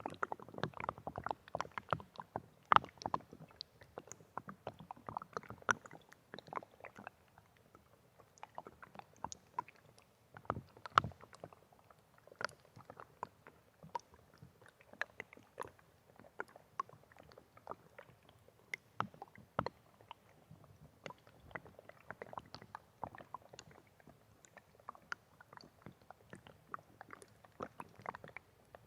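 Small water splashes and drips, irregular and crackly, busiest in the first several seconds and then thinning to scattered plips.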